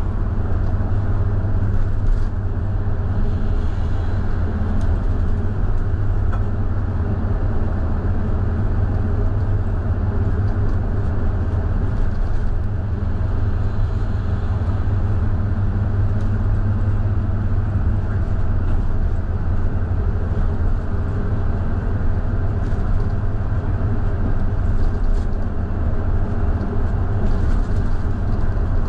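Scania K320IB4x2 bus's diesel engine and drivetrain running steadily: a deep, even drone at a constant pitch with no revving or gear changes.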